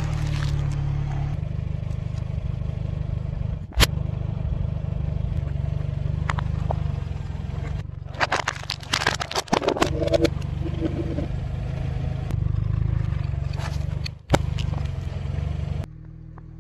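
Car engine idling steadily while its tyre rolls over and crushes plastic cups and food containers on asphalt. There is a single sharp crack about four seconds in, a run of plastic crunching and crackling around the middle, and another sharp crack shortly before the end.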